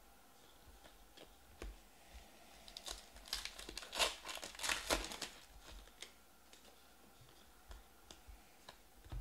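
A foil trading-card pack (2020 Panini Stars & Stripes baseball) being torn open and crinkled by hand: a burst of crackling and tearing for about three seconds in the middle. A few faint clicks of cards being handled come before and after.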